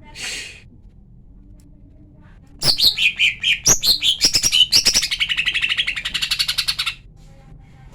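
Female greater green leafbird (cucak ijo) calling: a run of sharp, jumping notes that turns into a fast chattering trill for about four seconds, starting a little over two seconds in. This is the kind of female call bird keepers play as a lure to rile up male leafbirds. A short hiss comes just after the start.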